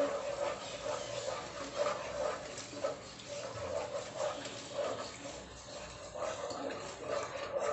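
Thick spice paste with milk cooking in a nonstick pot: a steady sizzle with soft repeated squelches as a silicone spatula stirs and scrapes it round.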